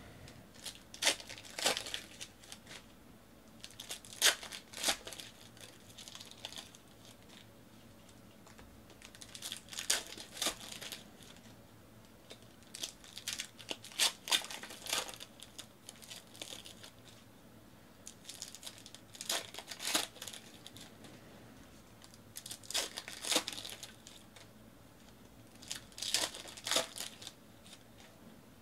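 Foil wrappers of football trading card packs being torn open and crumpled by hand, in short crinkling bursts every few seconds.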